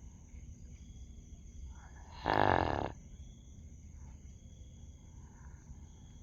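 Sleeping dog snoring: one loud, drawn-out snore about two seconds in, lasting under a second, over a quiet steady background.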